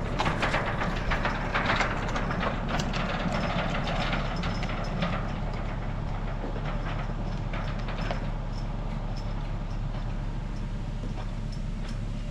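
Vehicle engine running steadily, with rattling and clanking that is busiest in the first couple of seconds and then thins out.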